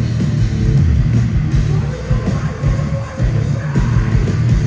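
Live rock band playing loud heavy music, with a dense low end and steady kick drum beats.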